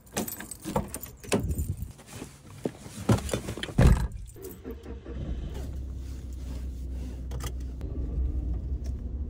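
Keys jangling and clicking in a car's door lock, the door opened and shut with a loud heavy thud just before four seconds in. After that, a steady low hum of the car's engine running, heard from inside the cabin.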